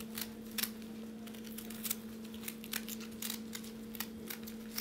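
A turning knife paring the fibrous green skin off an artichoke's base and stem: a run of short, crisp cutting clicks at an irregular pace, over a steady low hum.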